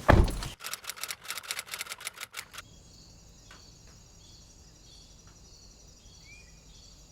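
A loud thump, then a fast run of clicks and knocks for about two and a half seconds. These give way to faint outdoor ambience: a steady high-pitched insect trill, with one short bird chirp near the end.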